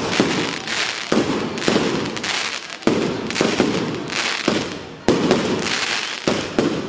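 A traca, a long chain of firecrackers, going off in a continuous rapid crackle, with louder bangs every second or two.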